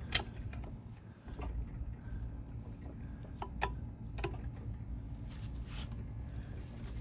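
A handful of sharp metallic clicks and scrapes from a tool being levered and twisted against the aluminum case of an NV3500 manual transmission, prying at a stubborn part and scratching the case. A steady low hum runs underneath.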